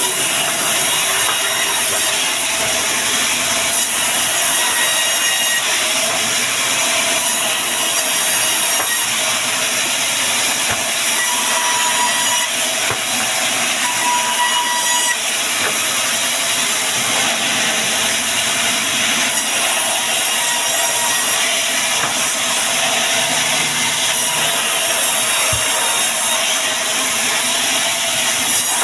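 Band sawmill cutting through wood: a loud, steady, hissing saw noise that runs unbroken, with faint brief whines now and then.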